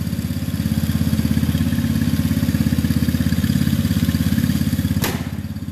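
A 125cc single-cylinder gas engine of a mini jeep golf cart idling steadily with a fast, even pulse. A sharp click comes about five seconds in, after which the engine sound is slightly quieter.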